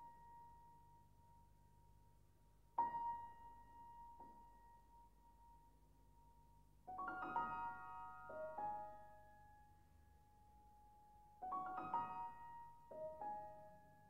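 Steinway concert grand piano played solo and softly: a single high note struck about three seconds in and left to ring, then two quick flurries of notes, near seven and near twelve seconds in, each settling into held ringing tones.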